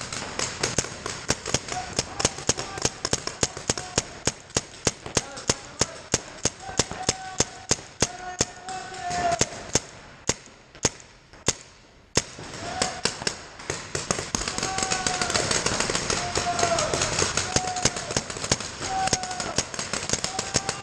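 Paintball markers firing in rapid strings of shots, several a second, with a short lull about ten seconds in before the firing picks up again.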